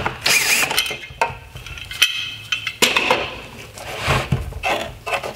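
Plastic headlight parts knocking and clinking as the turn signal housing is unscrewed and handled, with short whirs from a cordless screwdriver.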